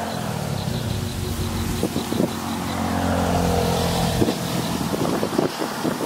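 An engine running steadily in the background with an even low hum, which stops about four seconds in.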